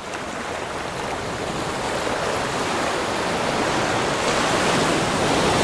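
Heavy ocean-waves sound effect: a steady rush of surf that slowly grows louder.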